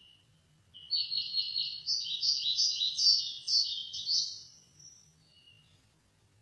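A small songbird's song played through a television's speaker: a rapid run of chirping notes lasting about four seconds, starting about a second in.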